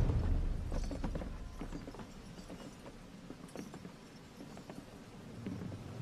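A deep boom dies away in the first second. Then come scattered, irregular clinks of iron shackle chains and shuffling footsteps as a line of prisoners walks forward.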